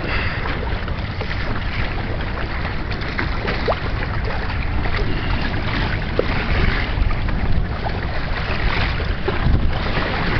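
Wind rumbling steadily on the microphone over the splash and wash of choppy water along the hull of a Hobie Tandem Island sailing kayak under way.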